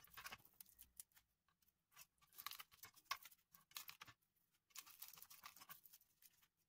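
Kitchen knife scraping and tapping on a wooden chopping board, gathering crushed garlic, in a quiet, irregular run of short scratchy strokes.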